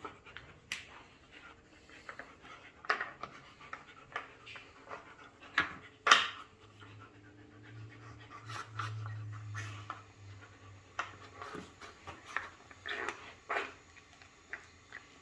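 Siberian husky sniffing and panting as it noses at the pieces of a wooden puzzle feeder, with irregular clicks and knocks of wood; a sharp knock about six seconds in is the loudest.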